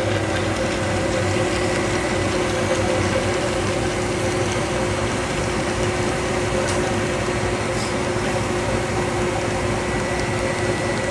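Gelato batch freezer running steadily during extraction, its motor and refrigeration giving an even hum with a few steady tones while the finished gelato is pushed out of the discharge spout.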